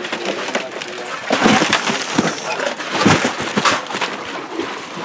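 Crushed ice crunching and rattling as it is scooped and packed into styrofoam boxes for the fish, with scattered knocks; the loudest crunching comes in two spells, about a second and a half in and again around three seconds in.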